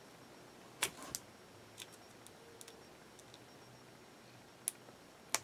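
Faint, sparse clicks and ticks, about half a dozen spread out, from fingers fiddling with a small metal craft embellishment to work it off.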